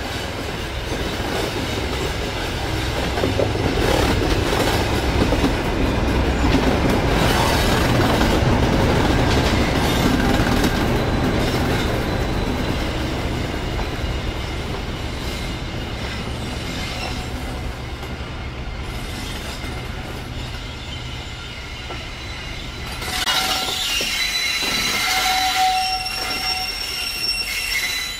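Class 37 diesel locomotive's English Electric V12 engine running with a low hum as it hauls a train of coaches past, wheels rumbling and clicking over the rail joints, loudest as the train goes by. Near the end the engine hum gives way to high-pitched wheel squeal from a train rounding a curve.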